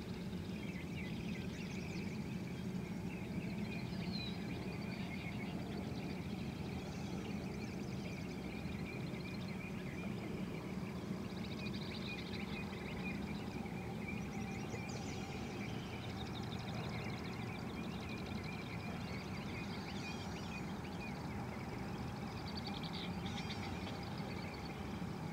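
Outdoor ambience: birds chirping intermittently over a steady low rumble of background noise and a constant thin high-pitched hum.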